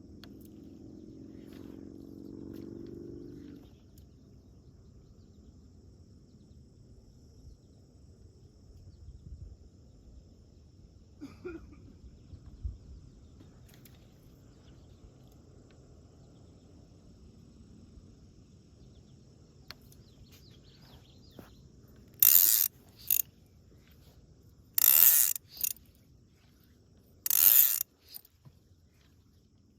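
Fly reel's click-and-pawl drag ratcheting in five short bursts near the end: three of about half a second and two shorter ones.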